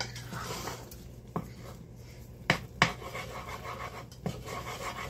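Wooden spoon stirring thick caramel in a metal saucepan, a soft scraping with a few sharp knocks of the spoon against the pan, two of them close together about halfway through. The caramel has just had baking soda stirred in.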